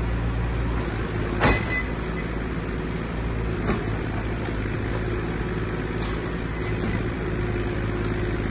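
JCB 8026CTS mini excavator's diesel engine running steadily while the arm and bucket are worked, with a sharp metal clank about a second and a half in and a lighter one near four seconds.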